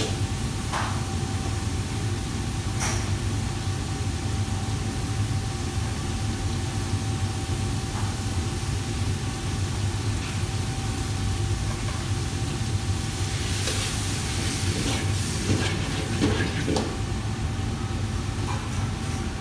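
Steady low roar of a commercial wok range: gas burners and the extractor hood running, with a steady faint hum. A few short clinks of a metal ladle against the wok, most of them in the second half.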